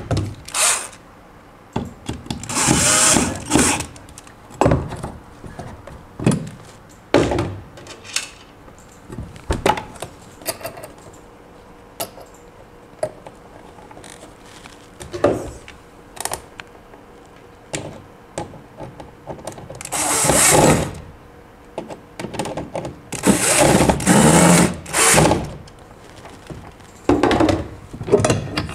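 Cordless drill driving screws through the mounting brackets of a wall-mounted enclosure into a wooden wall, in several bursts lasting a second or so. Between the bursts come scattered knocks and clicks as the box is handled.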